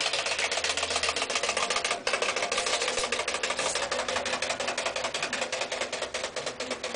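Wind-up clockwork frog bath toy paddling in shallow tub water, its spring motor clicking rapidly and steadily, slowly getting quieter toward the end.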